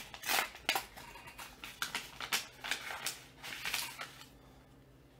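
A paper mail envelope being opened by hand, with irregular rustling and rasping strokes of paper that stop about four seconds in.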